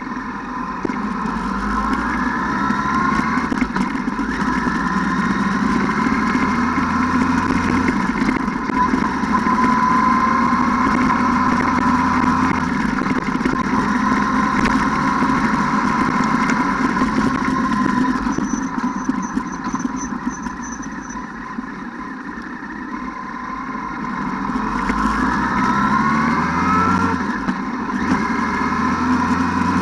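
ATV engine running steadily, its pitch climbing as it speeds up a couple of seconds in and again near the end.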